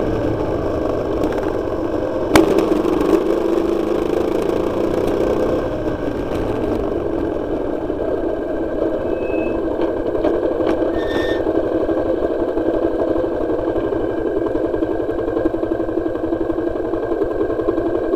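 Motorcycle engine running, heard from on the bike, with a sharp knock about two seconds in. The sound is fuller for the first few seconds, then eases to a steadier, duller run as the bike slows.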